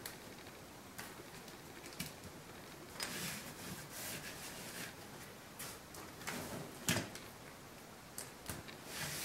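Lego Technic plastic parts handled on a Lego remote control: a string of sharp plastic clicks and short rattles as pieces are pulled off and pressed on, the loudest click about seven seconds in.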